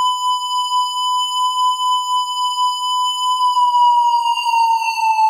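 Synthesized imitation of an ATI electronic outdoor warning siren: a steady, high tone that begins slowly dropping in pitch about three seconds in, with echo added.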